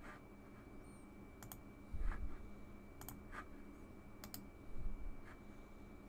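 Computer mouse button clicks: a single click about a second and a half in and quick double clicks around three seconds and just after four seconds, with a couple of low thumps in between. A faint steady high-pitched whine runs underneath.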